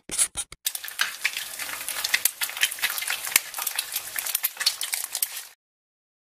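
Outro logo sound effect: a few sharp clicks, then a dense crackling, sizzling noise that cuts off abruptly about five and a half seconds in, leaving dead silence.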